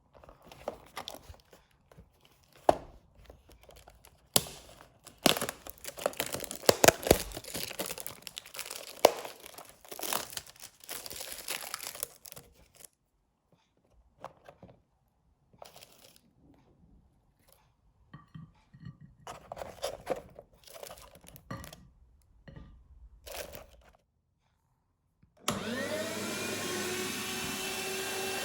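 Irregular crackling, crunching and clicking handling noises come and go with quiet gaps. Near the end an electric meat grinder's motor switches on, its whine rising as it spins up, then runs steadily.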